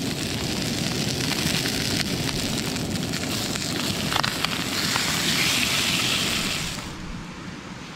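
Whole trout frying in butter in a metal pan, sizzling steadily, with a few light clicks and scrapes from a plastic spatula against the pan. The sizzle cuts off about seven seconds in.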